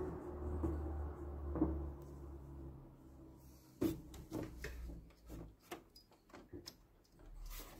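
Plastic knocks and clicks from a Canon Pixma G3411 printer's cartridge carriage and housing being handled. A steady low hum with a knock runs at first; about four seconds in comes a sharp knock, then a run of lighter, irregular clicks.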